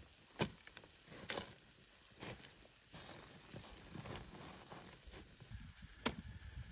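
Rib racks being pushed upright into a bed of hot charcoal and ash: a handful of sharp clicks and crunches of coals and grit shifting, over a faint steady hiss.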